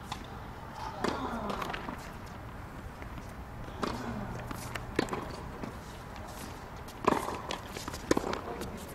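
Tennis ball struck by rackets in a serve and short rally: a few sharp pops a second or two apart, the last two about a second apart.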